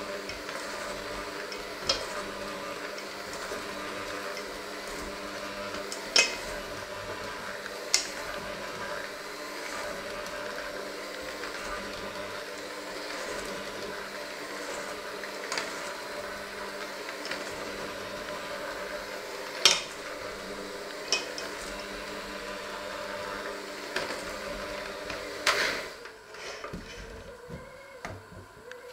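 Electric hand mixer running steadily, its beaters working a thick mixture in a stainless steel bowl and now and then knocking sharply against the bowl's side. The motor stops about 26 seconds in.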